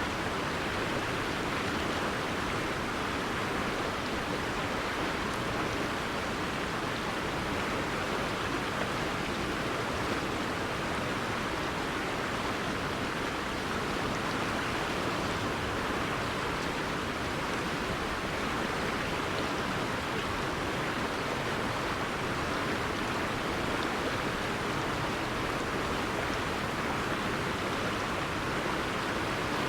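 Steady rushing of a flowing river, an even wash of water noise with no change.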